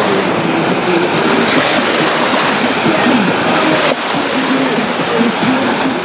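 Small waves breaking and washing up onto a sandy shore, a steady rush of surf.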